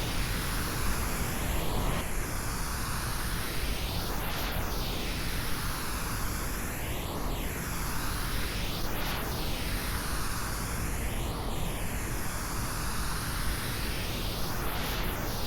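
Steady pink noise, an even hiss, given the 8D effect of circling around the listener's head. Its tone shifts in a sweep that repeats every two to three seconds.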